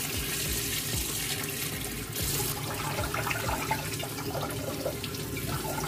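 Kitchen faucet running cold water into a pot of parboiled potato strips over a stainless steel sink, rinsing them, with a few light clinks of the pot; the water cuts off at the very end.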